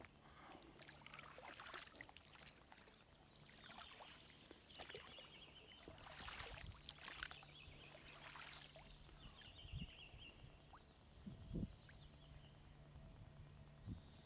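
Faint water splashing and trickling around a small boat, with the low, steady hum of a distant outboard motor under it from about a third of the way in.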